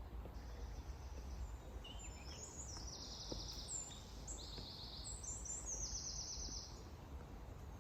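Songbirds singing: a string of short, high, rapid trilled phrases, over a low steady background rumble.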